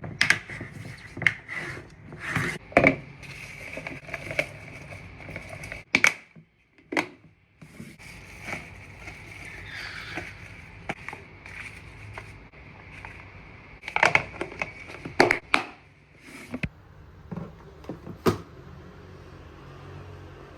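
Food containers and produce being set down, slid and shuffled on refrigerator shelves: irregular knocks, clicks and scrapes. Under them runs a faint steady high hum.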